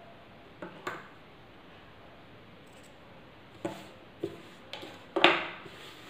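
A cloth face mask being handled on a wooden tabletop: a few short knocks and rustles from hands and fabric on the wood, the loudest near the end as both hands press the mask flat.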